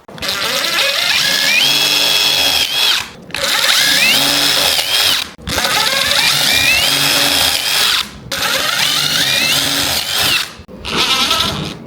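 Power drill/driver running in five bursts of about two seconds, each a whine that rises to a steady high pitch and holds before stopping, as it drives screws into drawer fronts.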